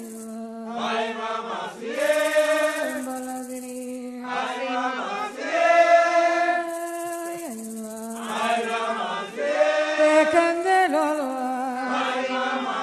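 Gagá festival music: a group chanting in long held notes that step to a new pitch every second or two, with a steady high hiss above.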